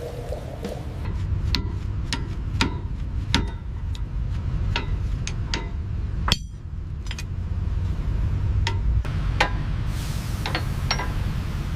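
Light metallic taps and clinks, irregular at about one or two a second, some with a short ring, over a steady low rumble.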